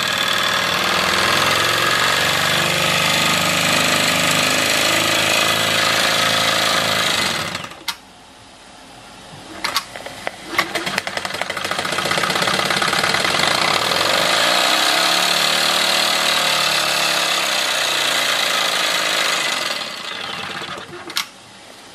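Wilesco D24 model steam engine running fast with a dense, rapid clatter. The sound drops away about a third of the way in, with a few sharp clicks. It picks up again with a pitch that rises and falls, then fades near the end.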